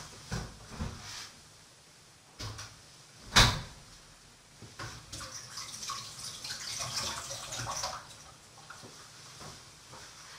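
Kitchen handling sounds while someone looks for a utensil: a few knocks, one much louder about three and a half seconds in, then a few seconds of rustling hiss.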